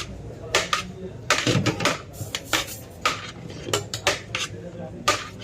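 Metal dishes and serving utensils clattering: a run of sharp clinks and knocks, a few a second at uneven spacing, as biryani is dished out.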